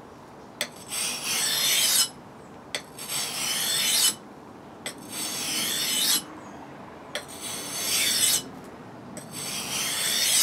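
Steel edge of a Cold Steel Viking Hand Axe drawn along a wet 250-grit waterstone in five long grinding strokes, about one every two seconds, each growing louder toward its end. A light tap marks the blade being set down at the start of each stroke. This is the coarse-grit stage of sharpening a slightly blunt edge.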